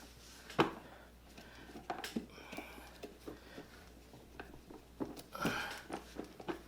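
Scattered light clicks and knocks of a Phillips screwdriver and plastic parts being handled while a pressure washer's handle is screwed on, with a sharper click under a second in.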